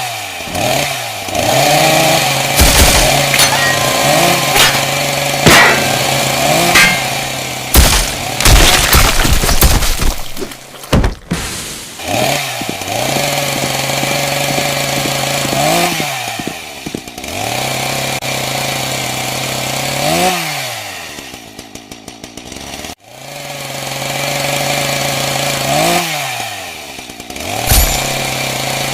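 Chainsaw running and revving up and down again and again, with its pitch swinging every few seconds. Sharp crashing impacts come in over it in the first third.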